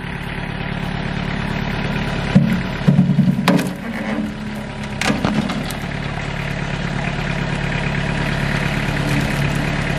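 LS compact tractor's diesel engine running steadily while its front-loader bucket pushes against a dead tree, with a few sharp knocks and cracks about two and a half to five seconds in.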